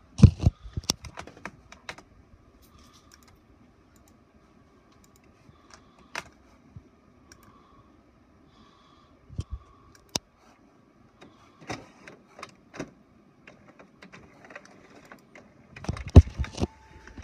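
Scattered sharp clicks and knocks in small clusters, several about a second in, a few in the middle and a loud group near the end, with a faint steady tone in between.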